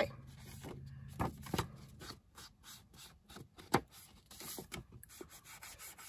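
Paper and card pages being handled and rubbed against each other, with a few light knocks.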